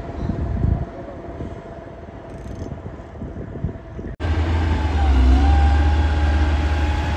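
A motor grader's diesel engine running under load: a loud deep rumble with a steady whine that dips briefly in pitch, coming in abruptly about four seconds in. Before it, quieter construction-site noise with a faint steady hum.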